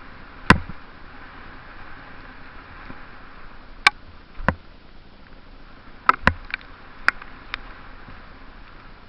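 Mountain bike descending a rain-wet trail: a steady rolling hiss broken by sharp knocks and clacks as the bike jolts over bumps. The loudest knock comes about half a second in, and a quick pair follows around six seconds in.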